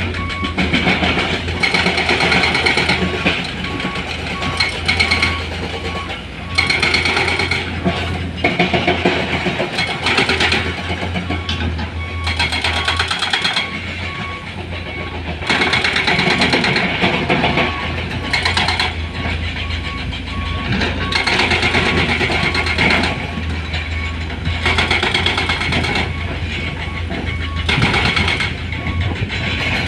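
Diesel engines of heavy equipment running with a steady low hum, over an evenly repeating electronic beep like a reversing alarm.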